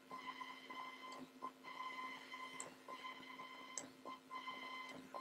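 Faint room tone with a steady, high electrical whine that comes and goes, and a few soft clicks.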